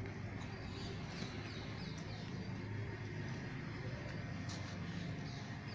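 Quiet outdoor background noise: a steady low hum, with a few faint high chirps about a second in.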